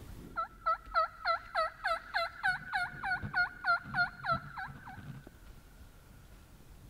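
A run of about fifteen turkey yelps in an even rhythm, roughly three a second, fading out at about five seconds.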